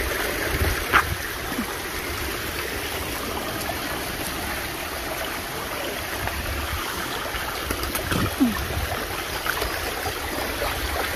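Shallow stream water running over a rocky bed, with low thuds of someone wading through it. There are two short sharp knocks, one about a second in and one near eight seconds.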